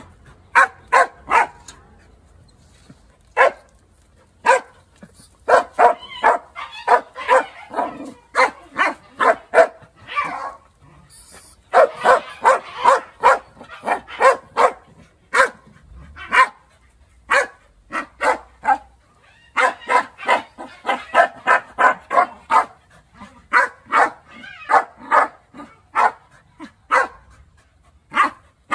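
A dog barking in quick runs of short barks, several a second, with brief pauses between the runs, at a rodent shut in a wire cage trap.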